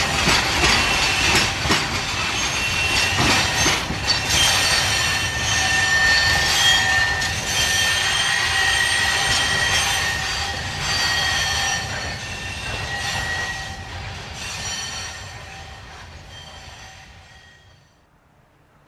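Loaded limestone hopper wagons of a 900 mm narrow-gauge train rolling past, the wheels squealing with high steady tones over clicking rail joints. The sound fades away over the last several seconds as the train leaves.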